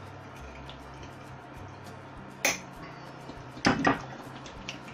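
Kitchen clatter at the stove: one sharp knock about halfway through, then two quick knocks near the end, like utensils or a container knocking on hard surfaces, over a low steady hum.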